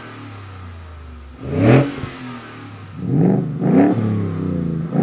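Ford F-150's 5.0L Coyote V8 running through its exhaust, idling steadily and then revved: one blip about a second and a half in, two quick blips a little later, then held at a higher, louder note.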